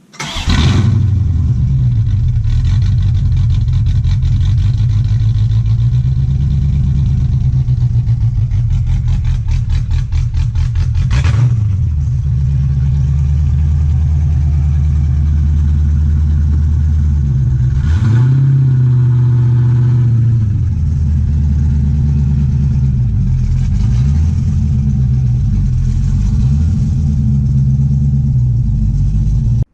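Chevrolet El Camino engine running loudly, its revs shifting down and back up about a third of the way in and again a little past halfway.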